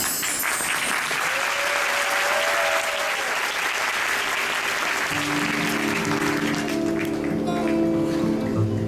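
Audience applauding, dying away after about six or seven seconds as music with long held notes comes in.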